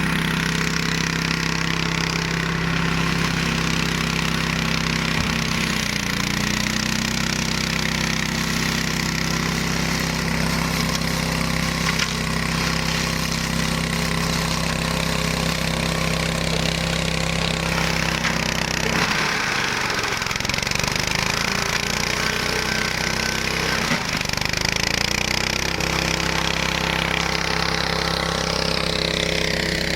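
The 15 hp Hyundai engine of a flail mower runs steadily. Its speed dips briefly about three times and recovers each time, and it rises near the end.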